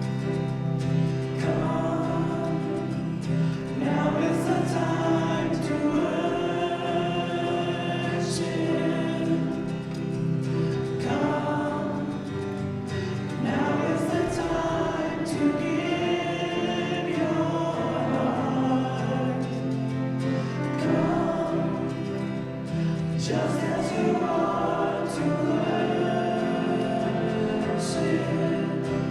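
A group of voices singing a hymn together, with steady instrumental accompaniment underneath.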